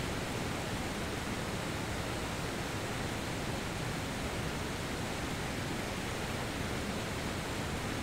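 The Presque Isle River pouring over rock ledges in small falls and rapids: a steady, even rush of water.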